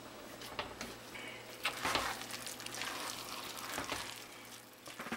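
A spatula stirring and turning thick cooked cornmeal (Jamaican turned cornmeal) in an enamelled cast-iron pot, with irregular scraping strokes against the pot.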